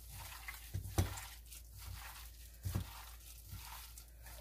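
Gloved hand kneading raw beef strips in a stainless steel bowl, working in baking soda: soft squishing of the meat and crinkling of the plastic glove, with two dull thumps along the way.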